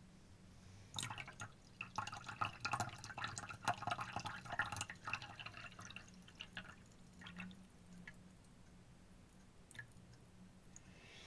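Liquid pouring in a thin stream from a small 160 ml Yixing clay teapot for about four seconds, tapering into a few scattered drips.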